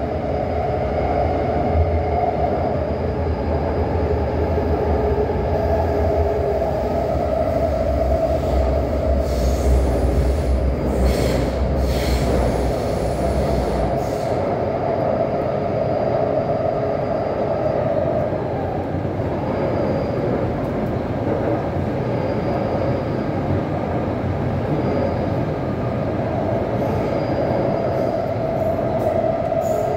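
Taipei Metro C371 train running between stations, heard from inside the car: a steady rumble of wheels on rail with a steady hum. The deep rumble eases about halfway through, and a few brief high screeches come about a third of the way in.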